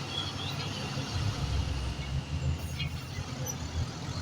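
Heavy diesel earthmoving machinery running with a steady low rumble.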